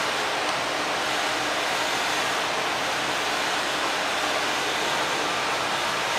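A steady, even rushing noise that holds at one level without a break.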